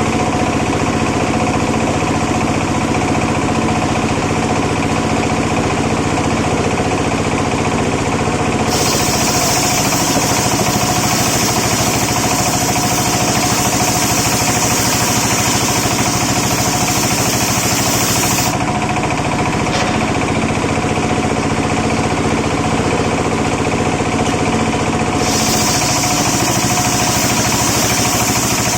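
Homemade engine-driven circular saw running steadily, its blade cutting coconut-palm wood twice: a harsh high hiss joins the engine from about 9 to 18 seconds in and again from about 25 seconds in.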